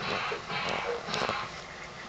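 A cat rubbing against the camera: two scratchy rushes of noise close on the microphone, with a couple of light clicks.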